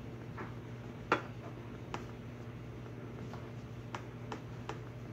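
Handling noise from a can of metal polish and a polishing rag: one sharp click about a second in, then a few lighter ticks and taps, over a steady low hum.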